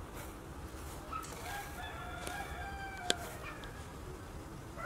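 A rooster crowing once, one long call of about two and a half seconds, with a single sharp click about three seconds in.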